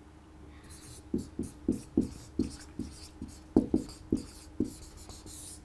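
Dry-erase marker writing on a whiteboard: about a dozen short, scratchy strokes in quick succession as a word is written out.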